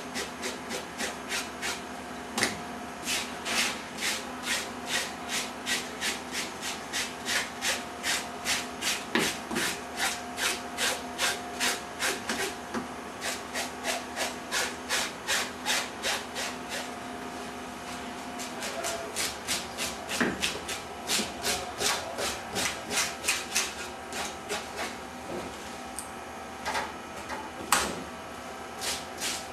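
KAAG handheld fish scaler scraping scales off whole fish in quick, even back-and-forth strokes, about two to three a second, with a short lull past the middle and a couple of louder knocks near the end.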